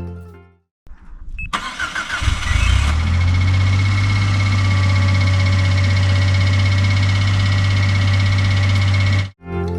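Suzuki Every Wagon DA17W's 660 cc three-cylinder engine starting and then idling steadily. Its sound is a low hum with a thin steady high-pitched tone over it, and it cuts off abruptly shortly before the end.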